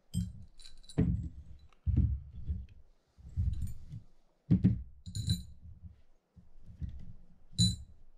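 Small metal reel-stand parts of a Penn Senator 112H, the clamp bar, screws and bracket, being handled and set down on a padded mat: a series of soft knocks with three sharp metallic clinks.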